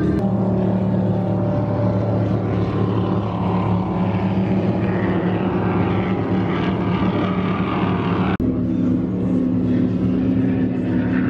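Motorboat engine running steadily. A brief break about eight seconds in is followed by the engine sound at a slightly higher pitch.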